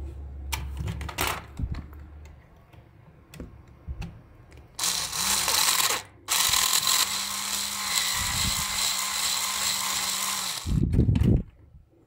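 Cordless electric screwdriver running in short bursts as it turns screws in a plastic toy case: a brief run about five seconds in, then a steadier run of about four seconds with a constant motor hum. Clicks of handling come before it, and a couple of low knocks near the end.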